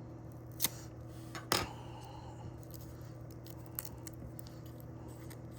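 A few sharp clicks and light scrapes as an X-Acto knife works at a gum pack's paper wrapper, the loudest about a second and a half in, over a steady low hum.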